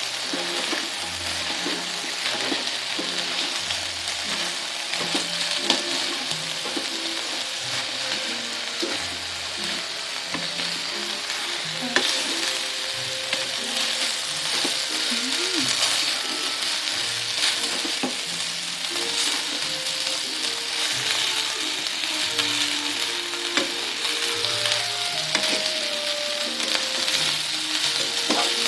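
Food sizzling steadily in a hot frying pan while it is stirred, with an occasional sharp click of the utensil against the pan.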